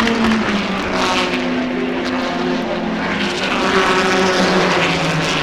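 Racing car engines running hard as cars go by, several engine notes overlapping and changing pitch, swelling twice.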